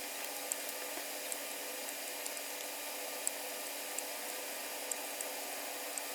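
Steady airy hiss of a desoldering tool running, with faint light clicks scattered through it.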